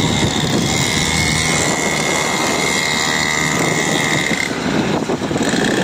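Engines of a motor scooter and a 49cc petrol mini dirt bike running on the move along a street, with road noise. A steady high whine drops out about four and a half seconds in.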